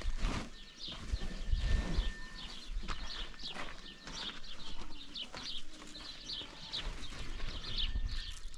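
Small birds chirping over and over in short, high notes, with low thumps and rustling near the start as a heavy folded tarp is lifted and carried.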